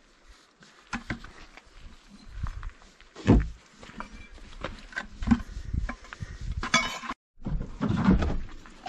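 Scattered knocks, clinks and footstep scuffs on dirt as a cultured stone sill cap is picked up and set across a mortar bucket, with the loudest knock about three seconds in.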